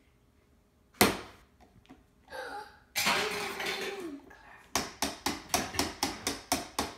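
Plastic toy hammer hitting a plastic toy workbench: one hard strike about a second in, then near the end a fast run of light taps, about four or five a second.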